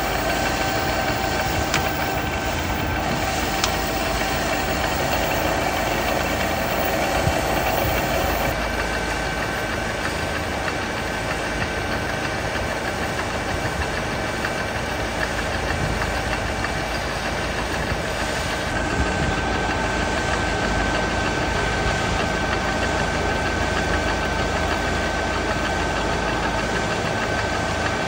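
A workshop machine tool running steadily: a motor hum with a steady whine, its tone shifting slightly about eight seconds in and again near nineteen seconds.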